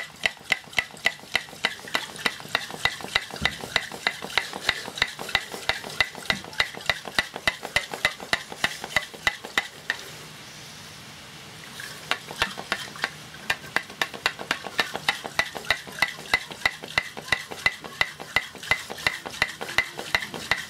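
Diesel sloshing and clattering inside the crankcase of a 2hp Briggs & Stratton engine as the engine is shaken hard by hand, about four strokes a second, with a pause of about two seconds near the middle. The diesel is flushing out old oil and gunk before the crankcase is split.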